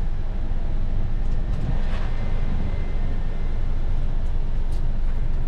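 Steady low rumble of a tour coach heard from inside the passenger cabin.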